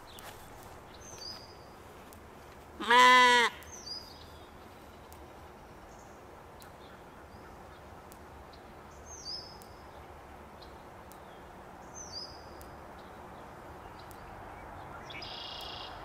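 A Katahdin sheep bleats once, loudly, about three seconds in, with a wavering pitch. A bird gives several faint, short, high, falling chirps against a steady outdoor background.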